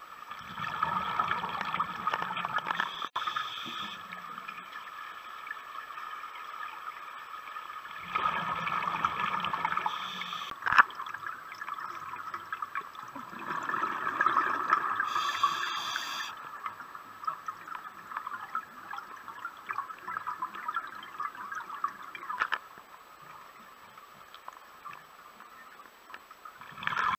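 Scuba diver's exhaled bubbles gurgling out of the regulator, heard underwater: three bursts of bubbling, about a second in, about eight seconds in and about thirteen seconds in, with a quieter hiss between them and a quieter stretch near the end. A single sharp click about eleven seconds in.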